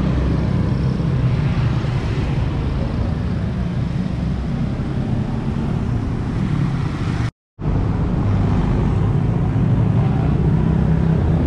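Roadside traffic noise: a steady low rumble of passing cars and motorbikes, dropping out briefly about seven seconds in.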